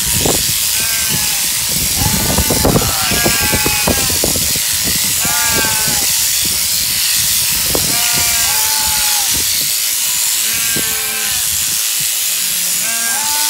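Sheep bleating over and over, about eight separate calls, over the steady high buzz of an electric sheep-shearing handpiece cutting through the fleece.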